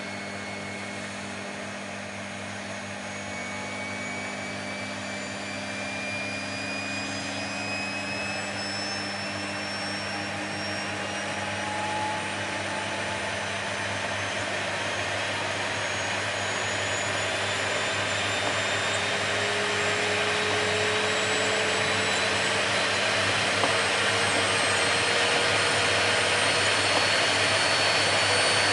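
Vacuum cleaner running steadily: a dense rushing noise with a motor whine that slowly rises in pitch and grows louder.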